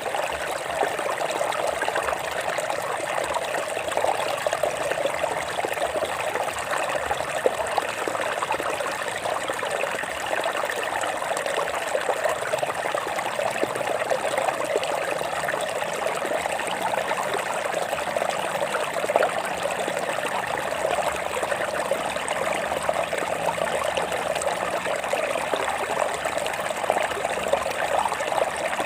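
Water running over rocks in a stream, a steady trickling and splashing with no let-up.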